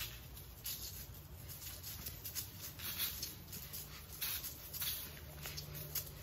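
Homemade salt-based deer mineral mix shaken out of a handheld canister onto bare dirt: dry granular pattering in short, irregular bursts.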